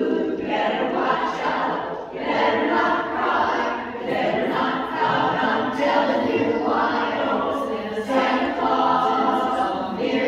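Women's barbershop chorus singing a cappella in close harmony, in phrases of a second or two.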